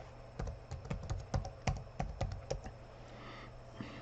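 Typing on a computer keyboard: a quick, irregular run of keystrokes entering an email address, stopping about two and a half seconds in.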